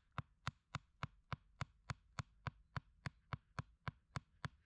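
Sharpened wooden stake being driven into the ground by a rapid, even run of knocks, about three and a half strikes a second, some sixteen in all.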